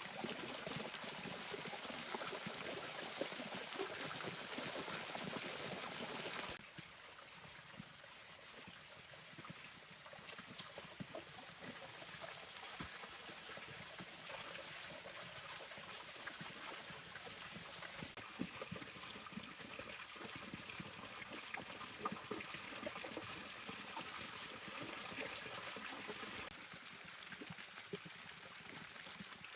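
Water trickling and gurgling steadily, with small scattered clicks; the sound drops in level about six seconds in and again near the end.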